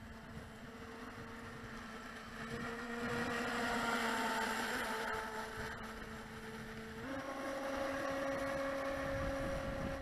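Volantex Vector 70 RC racing boat running on the water: its 1800 kV brushless motor gives a steady whine over the hiss of the hull through the water. The sound swells a few seconds in as the boat passes, and about seven seconds in the whine steps up in pitch and holds there.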